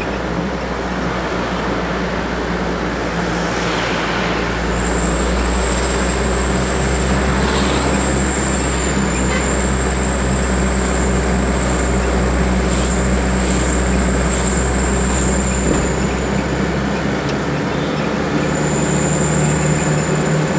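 Steady engine and road noise from a vehicle driving along a road. A thin, steady high-pitched whine sounds over it from about five seconds in until about sixteen seconds, and comes back near the end.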